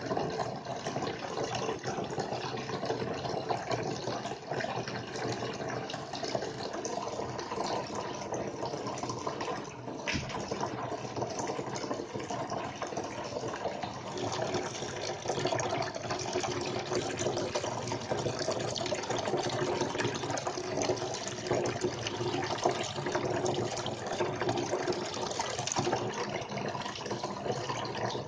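Water running steadily down a small handmade corner waterfall fountain, a continuous splashing trickle.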